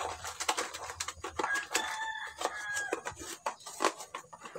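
A rooster crows once, a single call of about a second with a held note. Small clicks and scrapes from dishes being scrubbed with a sponge run under it.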